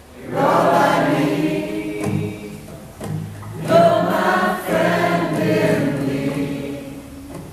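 Live acoustic song: acoustic guitars with sung vocals in two phrases, with a short break about three seconds in.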